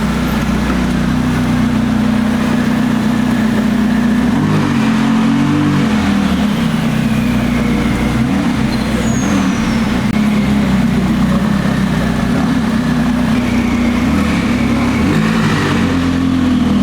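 A car engine running loudly and steadily at fairly low revs, its pitch rising and falling slightly now and then.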